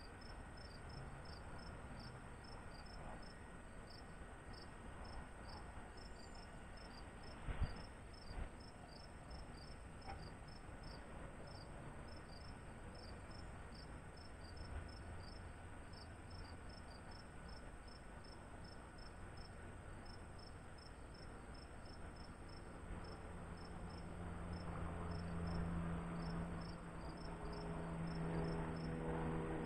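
Crickets chirping in a fast, even rhythm of high pulses. A single knock sounds about seven seconds in, and a low motor hum builds up over the last several seconds.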